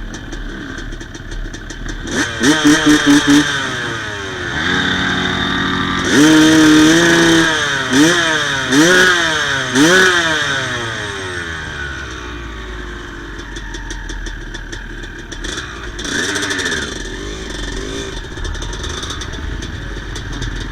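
Yamaha YZ250 single-cylinder two-stroke dirt-bike engine idling and being revved by the throttle. About two seconds in come five quick blips, then a held rev that climbs higher and three sharp revs a second apart. It drops back to a steady idle, with one more short rev about three quarters of the way through.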